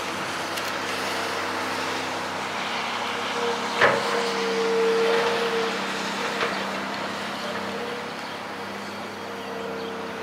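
Tracked demolition excavator with a grapple running steadily, its engine note rising for a couple of seconds around the middle. A single sharp clunk about four seconds in.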